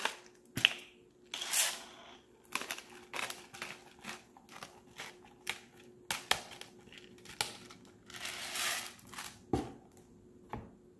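Hand pepper grinder being twisted over a bowl, grinding peppercorns: a string of short dry crunching clicks, with two longer stretches of gritty grinding noise.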